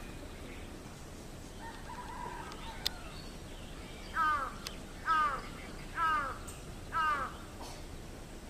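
A crow cawing four times, evenly at about one caw a second, each caw short and falling in pitch. A fainter call and a single sharp click come before the caws.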